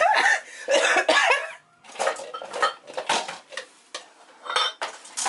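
Two short, loud vocal outbursts in the first second and a half, then scattered light clinks and clatter of dishes and cutlery.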